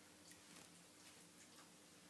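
Near silence: room tone with a faint steady hum and a scatter of faint, short ticks.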